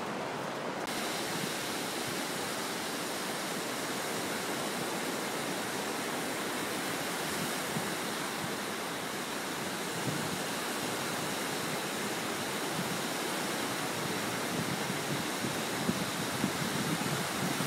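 Steady, even rushing noise of surf breaking on a sandy beach.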